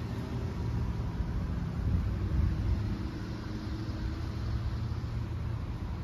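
A steady low rumble of outdoor background noise, with faint steady tones above it.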